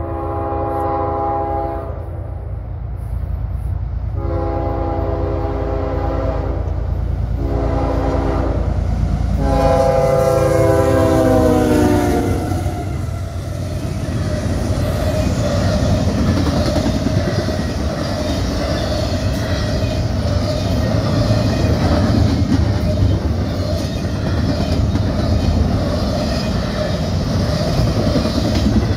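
CSX freight locomotive horn sounding long, long, short, long, the pattern of a grade-crossing signal. The last long blast falls in pitch as the locomotive passes. After that comes the steady rumble and clatter of intermodal stack cars and trailer flatcars rolling by.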